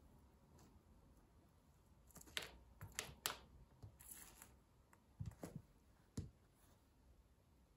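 Wooden pencil cracking and splintering under a stiletto boot heel: a few sharp cracks between about two and three and a half seconds in. Then come dull knocks as the heel and sole come down on the laminate floor.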